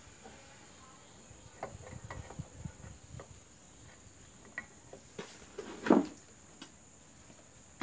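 Honda CM125T's metal clutch cover being handled and seated onto the engine crankcase over a new gasket: scattered light clicks and knocks of the cover against the engine, the loudest knock about six seconds in.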